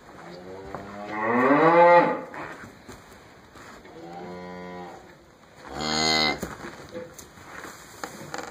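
Cattle mooing three times. The first call is long and rises in pitch and is the loudest. A quieter, steady moo comes about four seconds in, and a short, loud one about six seconds in.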